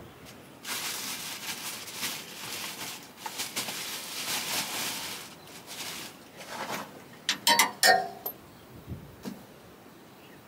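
Rustling and scraping for several seconds, then a burst of loud metallic clinks and clatter with a short ring, like metal parts being handled and knocked together, followed by a couple of faint knocks.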